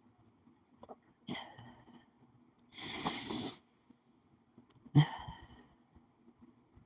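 A woman crying quietly: three breathy sobbing sounds, a short sharp one about a second in, a longer and louder one around three seconds, and a last sharp one near five seconds.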